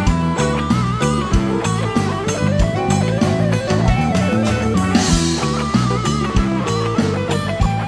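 Live band playing an instrumental passage: an electric guitar lead plays a wavering melodic line with bends over bass, keyboards and a steady kick drum about once a second. A cymbal crash comes about five seconds in.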